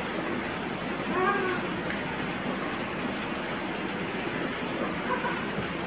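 Steady rush of water pouring from wall fountains into a swimming pool, with a faint voice briefly about a second in and again near the end.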